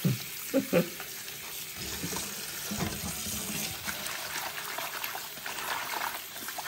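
Kitchen tap running steadily into a steel bowl of leafy greens in a sink, with hands swishing and rubbing the wet leaves under the stream.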